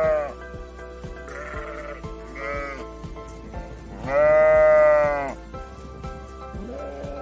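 Sheep bleating over background music with a steady beat: a call ending just after the start, a few shorter, quieter bleats, and one long, loud bleat about four seconds in.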